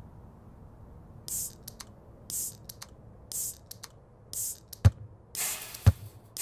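A percussion beat starting up: a short hissing hit about once a second with light clicks between, joined about five seconds in by a deep kick drum falling between the hisses.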